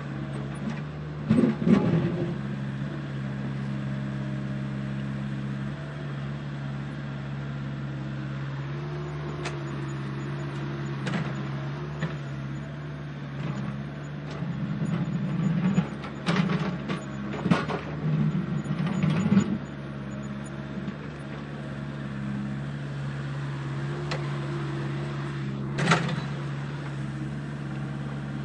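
Radio-controlled model construction machine running with a steady motor hum, broken by short bursts of clattering and knocks, a few in the middle and one near the end, as it works gravel.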